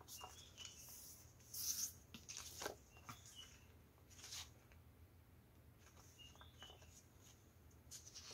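Faint rustling and sliding of printed paper sheets being handled and laid down, in a few soft brushes, the loudest about one and a half seconds in.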